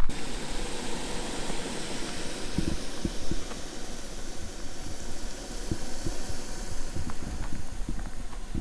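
Steady hiss of a gas camp stove burner running under a cooking pan, with a few faint ticks.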